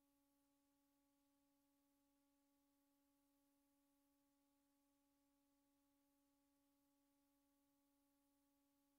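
Near silence: only a very faint steady hum over faint hiss, with no sound from the demolition work.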